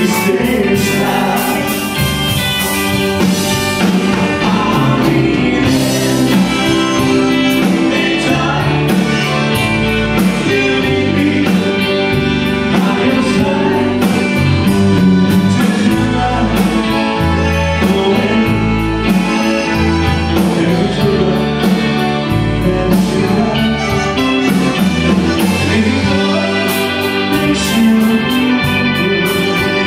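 Tex-Mex band playing live: electric guitars, accordion, trumpet, keyboard and drums, with singing over the band. The music runs steadily and loudly throughout.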